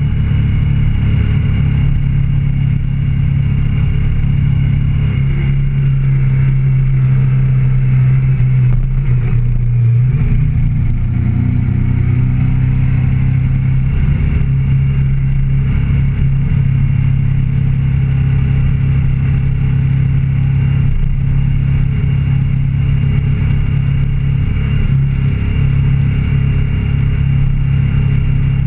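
Motorcycle engine heard on board while cruising, a steady engine note with wind and road noise; the note shifts about ten seconds in.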